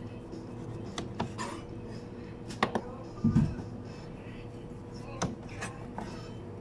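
Kitchen knife slicing through nori-wrapped maki rolls, the blade clicking on the cutting board in a few short pairs, with a dull thump a little past halfway. A steady hum runs underneath.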